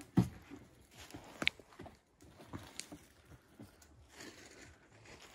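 Footsteps crunching through dry fallen leaves on the forest floor, irregular, with two sharper knocks in the first second and a half.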